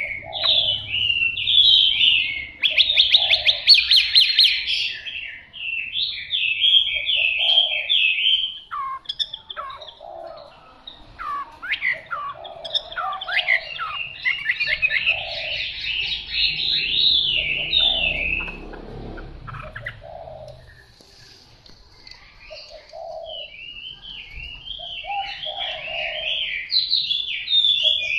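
Chinese hwamei (họa mi) singing: a long run of fast, varied phrases, with short lower notes recurring underneath. The song breaks off for a couple of seconds about three-quarters of the way through, then resumes.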